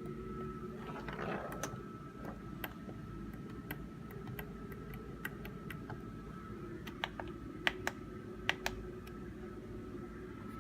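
Scattered faint clicks and taps at an uneven pace, with a few sharper ones about seven to eight and a half seconds in, over a low steady hum.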